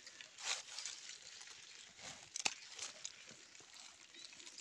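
Rustling and a few sharp clicks of hands handling the catch: a hand in a plastic bucket, then a nylon mesh bag being rustled. The loudest click comes about halfway through.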